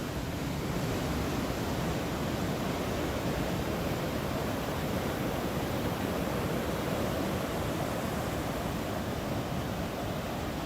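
Ocean surf and wind making a steady, even noise.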